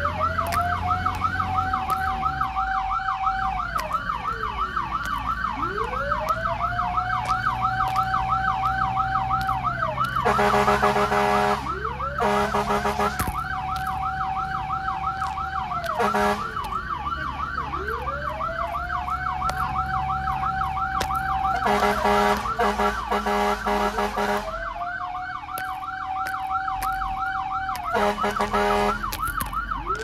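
Emergency-vehicle sirens sounding together: a fast warbling yelp, and a slower wail that rises, holds and falls about every five or six seconds. Several blasts of a deep horn break in, and an engine rumbles underneath.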